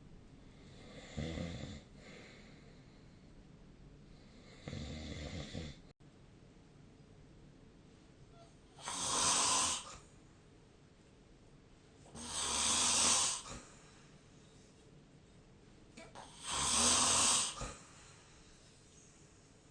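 A sleeping person snoring, one snore roughly every three to four seconds. The first two snores are fainter and lower; the last three are louder and hissier, each lasting about a second.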